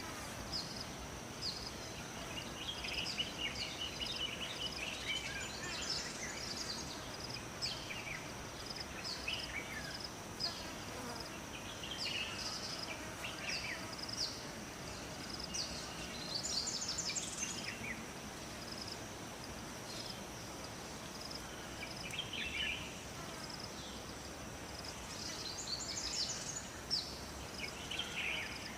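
Forest ambience: a steady high-pitched insect drone and a short chirp repeating about twice a second. Scattered bird calls and twitters come over it, with clusters about 3, 6, 17 and 26 seconds in.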